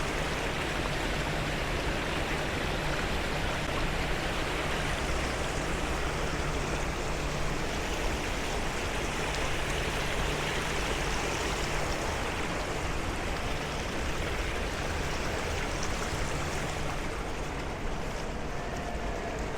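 Water from an ornamental fountain running and splashing in a steady rush.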